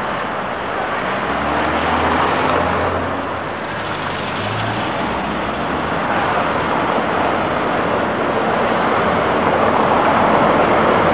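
Street traffic noise from city buses and cars driving over cobblestones. A bus engine's low drone comes in about a second in and fades after about seven seconds.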